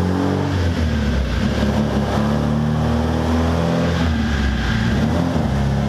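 Rebuilt Nissan KA24DE 2.4-litre four-cylinder engine in a 240SX running on a chassis dyno at a fairly steady, loud engine speed. Its pitch wavers slightly a few times.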